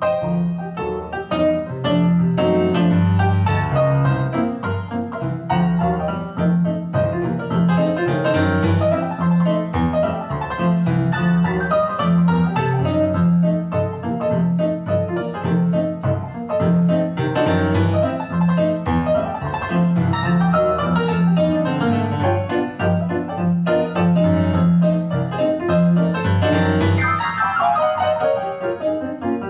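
Piano music played back through a pair of field-coil bookshelf speakers driven by a single-ended GM60 valve amplifier. A repeating bass figure runs under the melody, and a fast downward run sweeps across the keyboard near the end.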